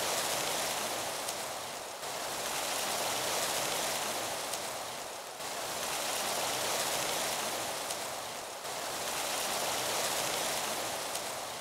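Rain falling in a steady hiss that swells and fades, breaking off and starting again about every three seconds.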